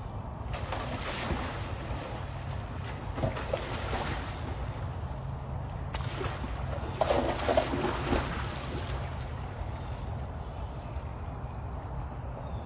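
Pond water splashing and sloshing as a swimming tiger pushes through it, in two bouts, loudest about two-thirds of the way in. A steady low rumble of wind on the microphone runs underneath.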